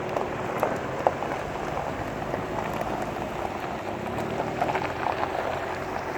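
Suzuki APV van's swapped-in Toyota Corolla engine running steadily with a low hum, under a dense crackling patter with scattered sharp clicks, one louder about a second in.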